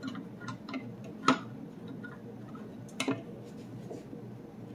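Clear plastic juicer parts clicking and knocking as they are pushed and turned to fit onto the juicer, a part that won't seat. A few light clicks, then a sharper knock about a second in and a double click near the three-second mark.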